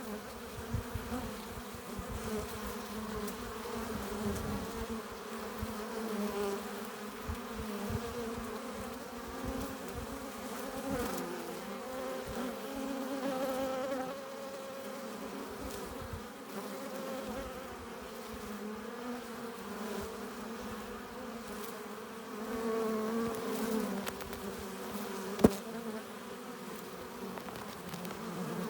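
Honeybees buzzing at a hive entrance: a dense, steady hum that swells and fades as bees come and go. A single sharp click sounds near the end.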